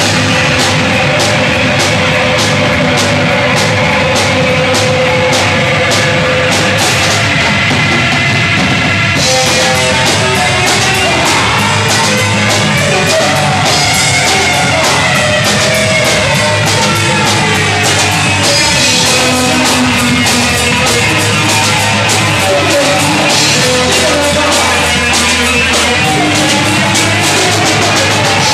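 A horror punk band playing live at high volume: two bass guitars and a drum kit, with no guitar, over a steady drum beat.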